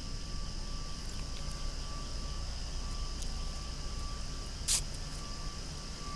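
Cicadas singing in a loud, steady chorus over a low rumble. A brief sharp noise cuts through about three-quarters of the way in.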